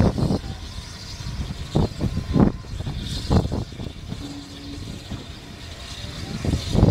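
LNER A1 Pacific steam locomotive Tornado working up a gradient, its exhaust beats heard unevenly from several carriages back, over the rumble of the train on the rails and wind on the microphone at an open carriage window.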